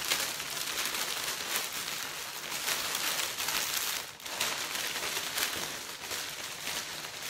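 Clear cellophane wrap crinkling and rustling as it is gathered and scrunched up by hand around a hamper basket, with a brief lull about four seconds in.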